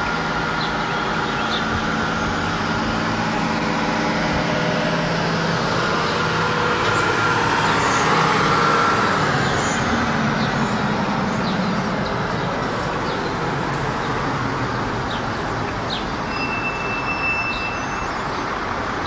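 Road traffic: a motor vehicle's engine and tyre noise swells as it passes about halfway through, then eases back to a steady traffic hum.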